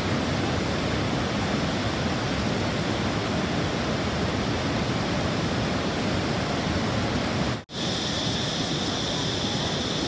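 Large waterfall cascades of the Mekong's Khone Phapheng Falls: a steady rush of white water over rock ledges. It cuts out for an instant near the end and resumes with a brighter hiss on top.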